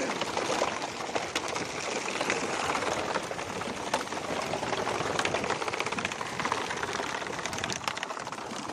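Rapid irregular tapping and pattering of freshly netted skipjack tuna flapping and beating their tails against the net and bamboo slats, mixed with splashing water.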